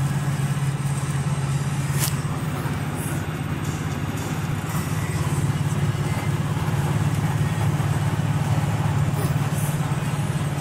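Road noise inside a car's cabin at highway speed: a steady low drone of engine and tyres with an even hiss over it, and a single sharp click about two seconds in.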